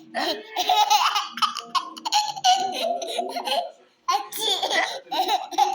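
A young child laughing in repeated high-pitched bursts, with a brief pause about four seconds in.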